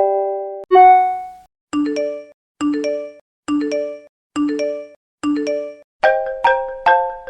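iPhone alert tones played one after another. A single chime sounds, then a short chime repeats five times about once a second, and about six seconds in a quick mallet-like ringtone melody begins.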